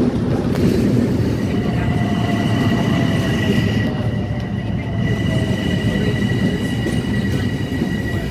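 LIRR M7 electric multiple-unit train running along the platform: a heavy low rumble of wheels on rail, with a steady high whine over it and a fainter, lower tone slowly dropping in pitch.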